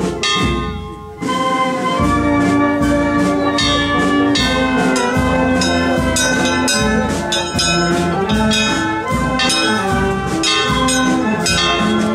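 Brass band playing a processional march: trumpets and trombones over a steady low drum beat.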